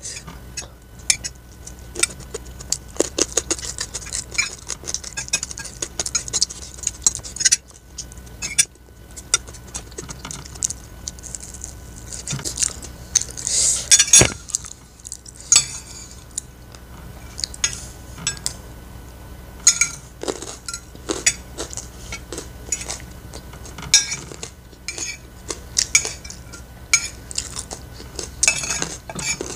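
Metal spoon and fork clinking and scraping against a ceramic plate while scooping up rice, a steady run of small clicks and scrapes with one sharp clink about halfway through.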